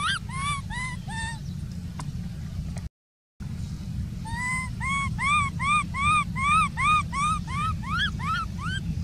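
Baby macaque crying: a run of short, arched whimpering cries, about three a second, that fade out in the first second or so, then start again about four seconds in and keep going to near the end. A steady low rumble lies underneath, and the sound drops out briefly about three seconds in.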